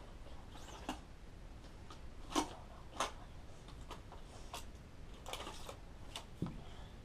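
Scattered light rustles and sharp clicks of handling and movement around a ball python's wood-chip enclosure as a mouse is dangled in front of it. The two loudest clicks come about two and a half and three seconds in.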